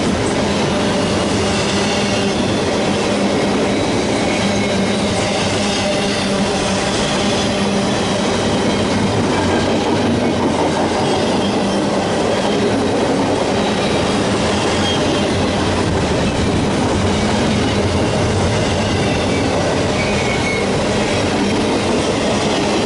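A train rolling past close by: the cars make a loud, steady rumble on the rails, with a faint high squeal from the wheels.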